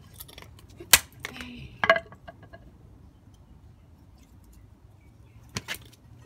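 Sharp knocks of a hard plastic tail-light housing and a wooden plank against concrete paving slabs: two knocks about a second apart early on, then a quick pair near the end.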